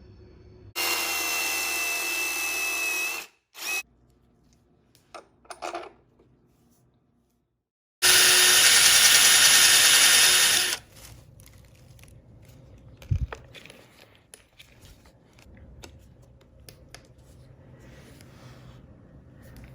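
Power drill running in two steady runs of about two and a half seconds each, with a high whine, and a few short spurts between them. A single sharp knock follows later.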